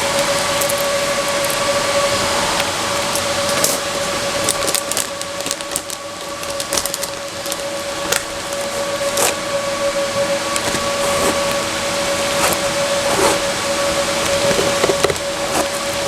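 Steady machine hum with a constant whining tone, over which come scattered clicks and rustles of things being handled.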